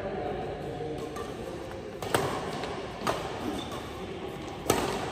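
Badminton rally: rackets striking the shuttlecock in sharp hits about a second apart, the loudest near the end.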